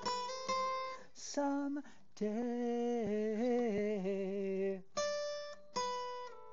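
Acoustic guitar played one plucked note after another. A man's voice holds one long, wavering sung note in the middle, and then the picking resumes.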